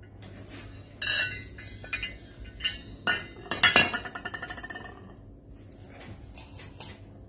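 Brass candlesticks clinking as they are handled and set down on a tiled floor. There are several separate metal knocks, the loudest around three to four seconds in, and each leaves a short metallic ring.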